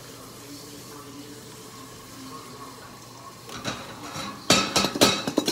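Metal cookware clattering at the stove: pot, lid and utensil clanking against each other in a quick run of ringing hits that starts about three and a half seconds in and is loudest near the end. Before that there is only a faint steady kitchen background.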